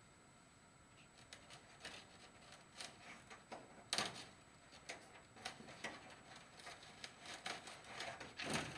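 Scattered light clicks and rustles from thin wire ties being twisted by hand and chicken wire being handled as foam board is fastened to it. The loudest click comes about four seconds in.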